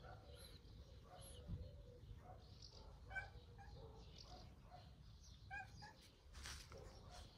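Near silence: quiet outdoor ambience with faint short chirps now and then and a brief soft rustle near the end.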